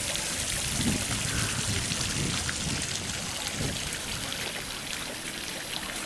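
Small garden fountain, its single jet splashing steadily into a stone basin.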